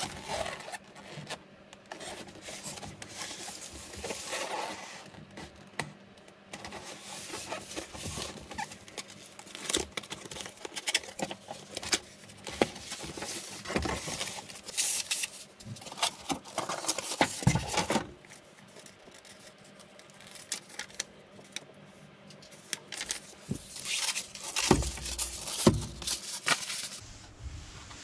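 A cardboard box being opened and unpacked by hand: flaps scraping and rustling, packing material crinkling, and irregular clicks and knocks as the plastic radio-style speaker is slid out and set down. The handling goes quieter for a few seconds after the middle, then picks up again with a few low thumps near the end.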